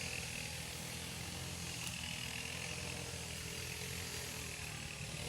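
Two-stroke grass cutter (brush cutter) running steadily in the distance with an even engine drone and a high whine.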